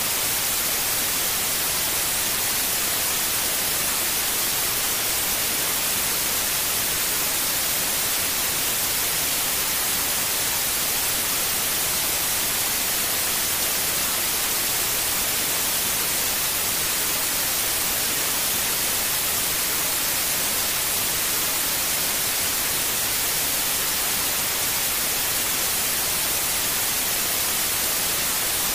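Steady white noise: an even, unchanging hiss, brightest in the high end, played as a sleep aid for a newborn.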